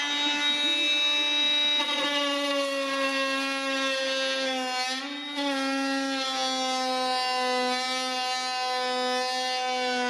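Parkside PAMFWP 20-Li B2 brushless 20 V oscillating multitool running at full speed and plunge-cutting into a wooden board. It makes a steady high whine whose pitch sags slightly through the cut, with a brief wobble about five seconds in.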